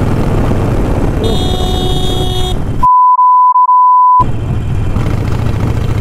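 Motorcycle engine and wind noise while riding, with a horn sounding for about a second a little after the start. About three seconds in, a loud steady censor bleep cuts out all other sound for about a second and a half, broken two or three times very briefly, before the riding noise returns.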